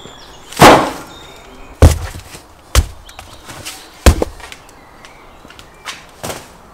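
Cardboard packs of salt being set down and handled, giving a series of six dull thuds. The loudest is a longer knock with a rustle about half a second in, then further thuds near 2, 3 and 4 seconds, and two lighter ones near the end.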